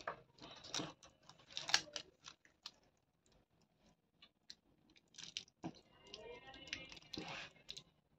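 Adhesive tape being pulled off its roll in short faint crackling rasps and wrapped around a pack of lithium-ion cells, with light handling clicks.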